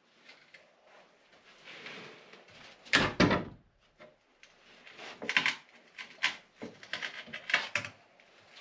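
Plywood bulkhead panel being wrenched back and forth and pried loose inside a boat's hull: wood scraping and knocking. The loudest knocks come about three seconds in, and a run of knocks and scrapes follows.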